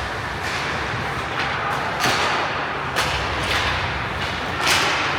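Ice hockey play: a string of about six sharp knocks and scraping hisses that echo, the clack of sticks and puck and the scrape of skates on ice.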